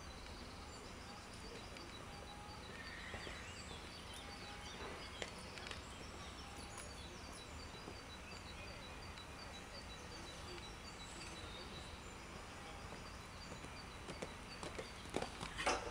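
Outdoor background hum with a bird chirping in a regular series of short high notes. Near the end, a cantering horse's hoofbeats on sand footing come in and grow louder as it passes close by.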